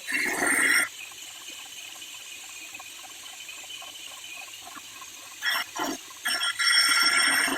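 A power tool working steel in loud bursts with a high, squealing ring: once at the start, then stop-and-go from about five and a half seconds in, with a quieter hiss in between.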